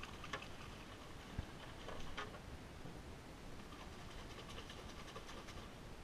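Faint scratching and clicking of hands working at the tip of a bamboo fishing pole and its line, with one dull knock about a second and a half in, over a low steady rumble.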